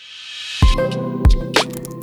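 Electronic dance background music: after a brief drop it swells back up, and a beat of heavy hits comes in about half a second in.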